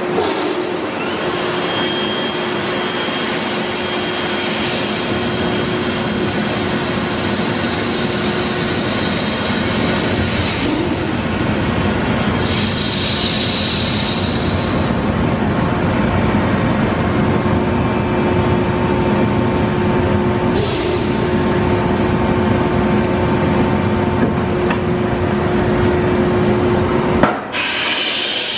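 Peddinghaus HSFDB 2500 B CNC plate processor's drilling spindle cutting into steel plate: a loud, steady machining noise with a held tone under it and a brief higher squeal about halfway. It cuts off suddenly near the end with a knock.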